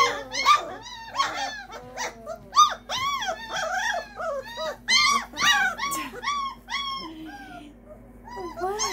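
Litter of 20-day-old Great Dane puppies whining and yelping: a rapid string of short, high-pitched cries that rise and fall, several overlapping at once. They ease off briefly near the end, then start again.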